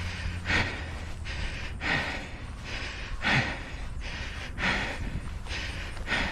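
Hard, rhythmic breathing of an orienteer close to the head-mounted microphone, a full breath in and out about every second and a half. The breathing is heavy from exertion, with the heart rate around 171.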